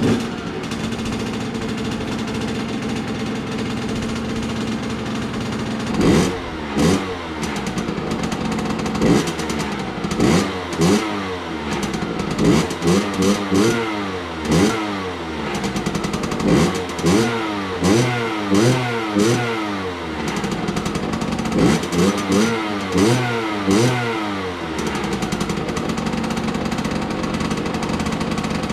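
Rieju MRT 50 SM's 49cc two-stroke engine idling, then blipped again and again in short quick revs for most of the middle, each rising and dropping back, before settling to a steady idle near the end.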